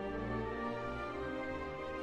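Background music: orchestral strings playing sustained notes.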